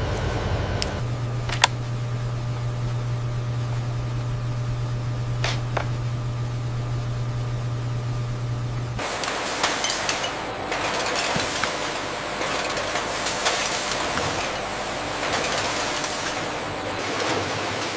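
A steady low machine hum with a few sharp clicks, which cuts off abruptly about halfway through and is replaced by a loud rushing hiss, like spraying or pouring water.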